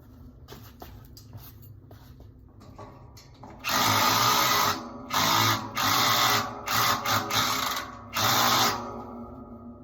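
Power drill run in about six short bursts, each under a second, while assembling a display rack. Light clicks of handling come before the first burst.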